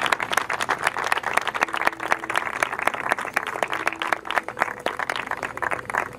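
A small group of people applauding, with the individual claps distinct and uneven.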